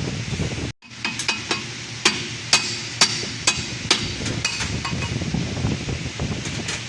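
Irregular sharp metallic clicks and taps, about a dozen over several seconds, from hand tools working on metal parts under a car, over a steady fan hum.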